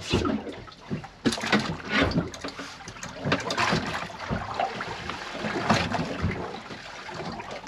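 Water splashing and sloshing unevenly beside a small boat while a small hooked fish is reeled in to the side.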